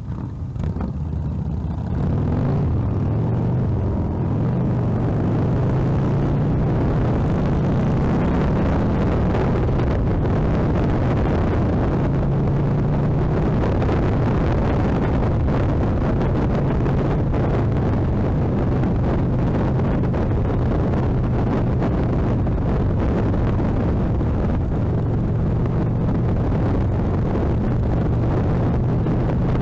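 Motorcycle engine running at speed under a wash of wind and road noise. The engine gets louder about two seconds in, then holds a steady note.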